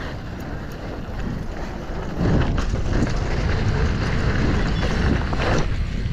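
Wind rushing over a GoPro's microphone as a mountain bike is ridden, with a low rumble from the ride that grows louder about two seconds in and a few faint knocks.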